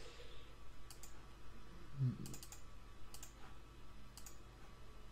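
Computer mouse clicking, a handful of faint separate clicks spaced about a second apart, with a short low sound about two seconds in.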